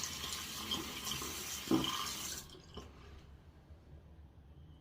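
Water running from a tap into a sink, with a short louder splash a little under two seconds in; the flow stops about halfway through.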